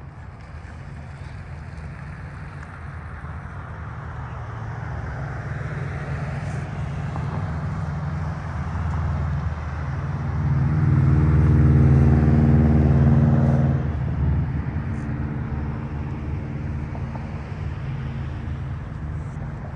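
A road vehicle's engine nearby: a low rumble that builds over about ten seconds, is loudest for a few seconds with a steady engine hum past the middle, then fades.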